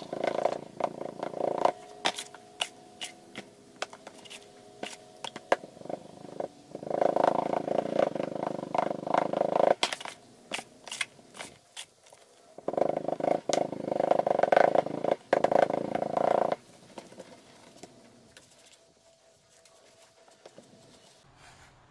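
Olivine green sand being rammed into a wooden mold frame with a hand rammer: a run of sharp taps and knocks. Three stretches of a steady droning hum, a few seconds each, are louder than the taps, and the last few seconds are quieter.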